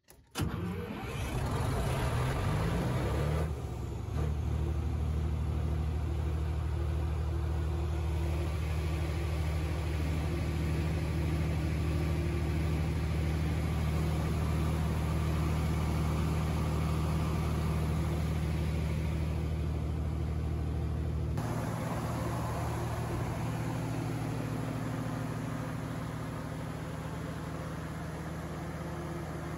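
FG Wilson 750 kVA diesel generator set with its Perkins engine running steadily on test, a deep, even drone. It turns a little quieter and duller about two-thirds of the way through.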